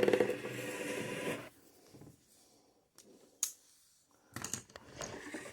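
A buzzing hum from the CB radio's speaker for about a second and a half, then a sharp click a couple of seconds later and some clicking and handling noise near the end.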